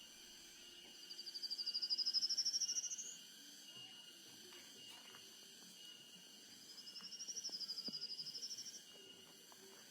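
Nature ambience: a bird gives two rapid trills, each about two seconds long and rising in pitch, the first louder, over a steady high-pitched insect drone.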